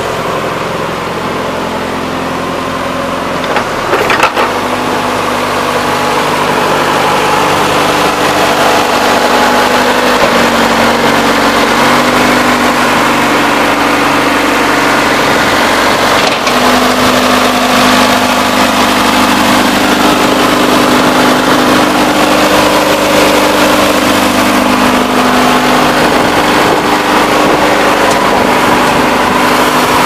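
Case 580K backhoe's four-cylinder diesel engine idling steadily; its note shifts slightly up and down a few times. A short knock about four seconds in.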